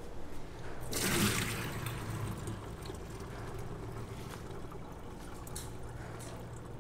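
Soaking water poured off a stainless steel bowl of mung beans through a wire-mesh strainer into a steel sink. The pour starts about a second in, is loudest there, and then thins to a trickle and drips.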